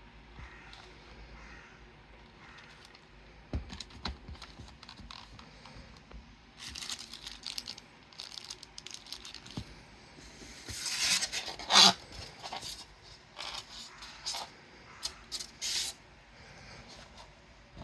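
A portable radio cassette player being handled: scattered clicks and knocks with scraping, rustling bursts, the loudest about twelve seconds in, then a quick run of clicks.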